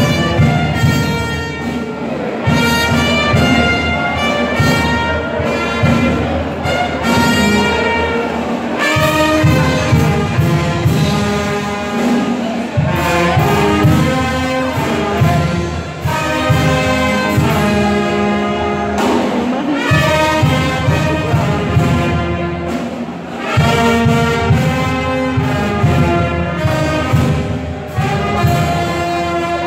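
Brass band music, trumpets and trombones playing a melody over a steady drum beat.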